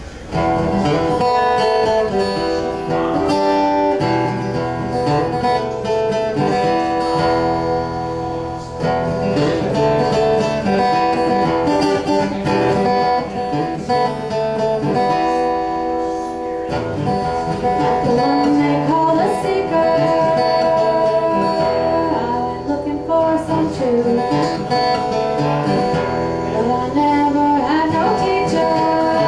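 Acoustic guitar played live by a solo performer, starting suddenly at the beginning and carrying on steadily.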